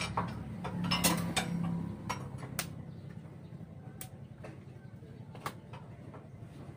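Scattered sharp metal clicks and taps from hand work on a steel tractor harrow frame, a few in the first three seconds and fewer after. A low engine hum underneath fades out about two seconds in.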